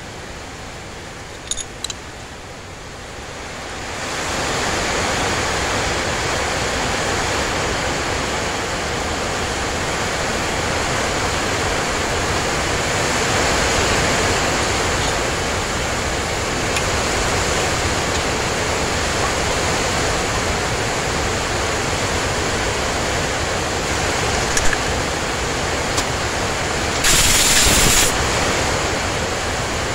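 A steady rushing noise that swells up about four seconds in and then holds, with a few light clicks and a louder burst of noise lasting about a second near the end.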